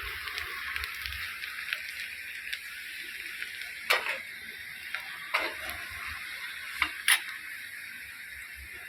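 Onion, garlic and curry leaves sizzling steadily in hot oil in a kadhai, browning to a reddish colour. A few sharp clinks of a spoon stirring against the pan, the loudest about four and seven seconds in.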